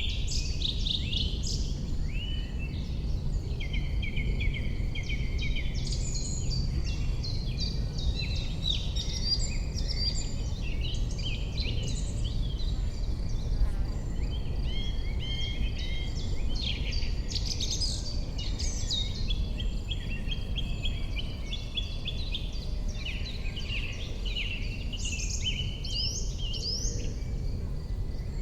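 A dense chorus of several songbirds chirping and trilling all through, over a steady low rumble.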